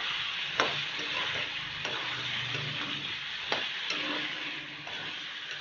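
Chicken, potato and raw papaya pieces sizzling steadily as they fry with spices in an iron kadai. A metal spatula stirs them, clicking and scraping against the pan a few times.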